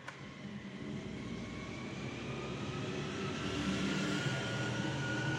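A vehicle engine running steadily, with a whine that slowly rises in pitch; a single click at the start.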